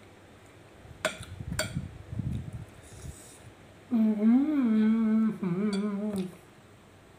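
A man humming an appreciative closed-mouth "mmm" while chewing a mouthful of food, a little over two seconds long, starting about four seconds in; the pitch lifts once, then holds. Earlier, two sharp clicks about half a second apart.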